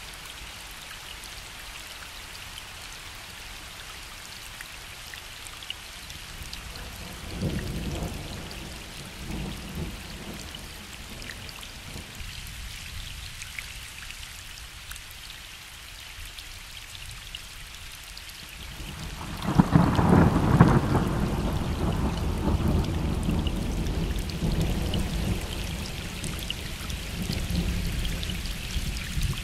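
Gentle rain falling on a lake, a steady hiss with scattered drop ticks, under distant thunder. A short low rumble comes about a quarter of the way in, and a louder, longer rumble starts about two-thirds through and is still fading away at the end.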